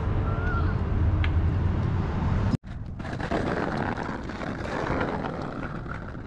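A vehicle's steady low hum of engine and road noise, cut off abruptly about two and a half seconds in, followed by quieter outdoor ambience.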